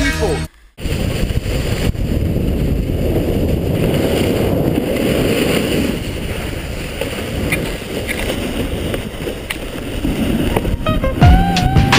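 Snowboard sliding and scraping over packed snow, with wind rushing over a nearby action-camera microphone: a loud, rough, steady noise. Music comes back in near the end.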